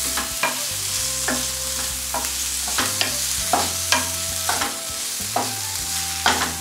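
Sliced onions and garlic sizzling in olive oil in a frying pan. A wooden spatula stirs them, with a dozen or so light knocks and scrapes against the pan over the steady sizzle.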